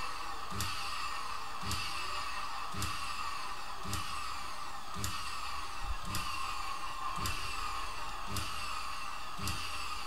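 Vacuum-cleaner motor driving a small generator, running steadily with a high whine. A short knock comes about once a second from a part that is not fastened down and is banging.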